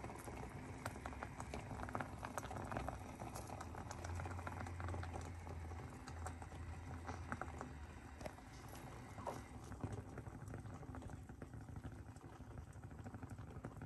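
Mussels boiling in a stainless steel saucepan of water: steady bubbling with many small pops and crackles of foam over a low hum, the popping growing sparser in the last few seconds.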